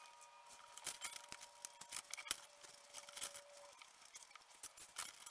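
Metal spoon scooping and scraping watermelon flesh from inside the rind: a run of small, irregular scrapes and clicks.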